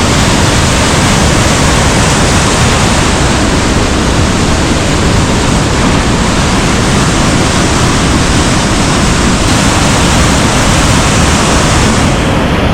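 Pistyll Rhaeadr, a 240-foot three-stage waterfall in spate after heavy rain, pouring with a loud, steady rush of water. The top of the hiss thins out slightly near the end.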